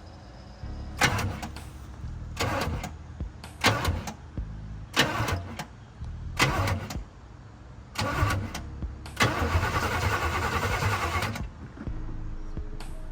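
Chevrolet Caprice's starter cranking the engine in six short bursts, then one longer crank of about two seconds near the end, without the engine catching. The owner suspects a fuel problem, fuel not reaching the engine.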